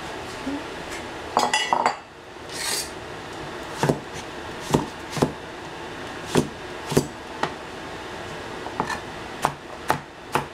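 Chinese cleaver chopping through summer squash onto a plastic cutting board: about ten sharp, irregular knocks of the blade hitting the board from about four seconds in. Before the chopping there is a brief clatter and a short rustle.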